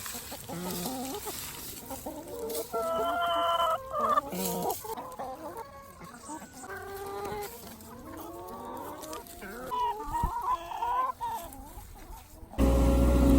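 Backyard hens clucking, a string of short rising and falling calls. Near the end the sound cuts off abruptly to a loud, steady low hum.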